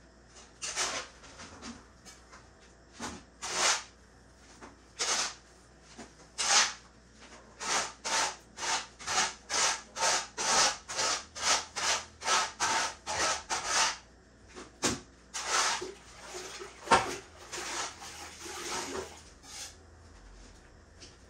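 A cloth rubbing in short scrubbing strokes, scattered at first, then a fast regular run of about two to three strokes a second, then a few more scattered strokes. One sharp knock comes about four seconds before the end.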